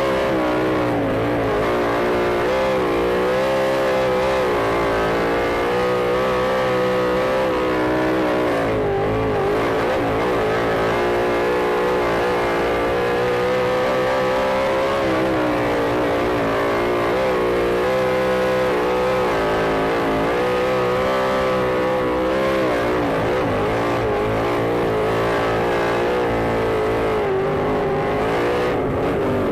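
Sprint car engine at racing speed, its note rising and falling in a repeating cycle every six or seven seconds as it goes around the track.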